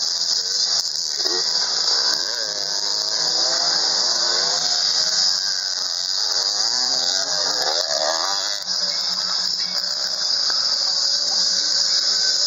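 Several off-road dirt bike engines revving, their pitch rising and falling as the bikes pull away one after another. A steady high-pitched hiss runs throughout.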